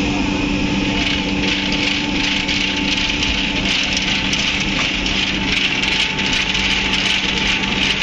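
Machinery running steadily: a constant low hum with a hiss over it that grows louder about a second in.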